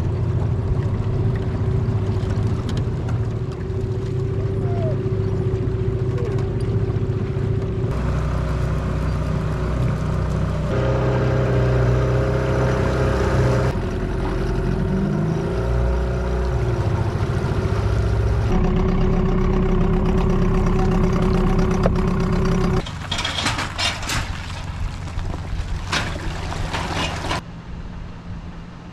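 Small tiller outboard motor running on an aluminium fishing boat under way, heard in several cut-together stretches with the engine's pitch shifting between them and rising and falling once near the middle. Toward the end the motor sound drops back under wind noise on the microphone.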